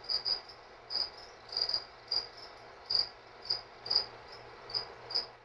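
Cricket chirping in short, high, regular chirps, a little under two a second, some of them doubled.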